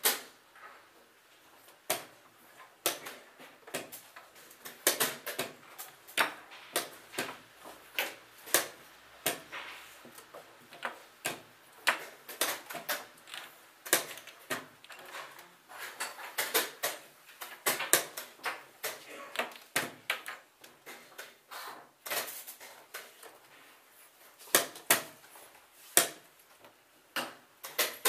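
Wooden chess pieces being set down on a board and the buttons of a digital chess clock being pressed. The sharp clicks and knocks come in quick, irregular succession, several a second at times.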